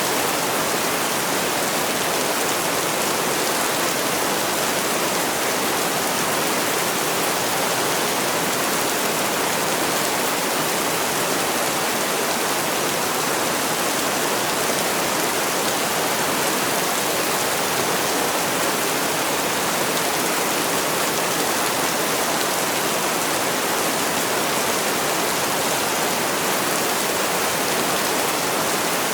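Heavy rain falling, a steady even hiss with no changes or separate drops standing out.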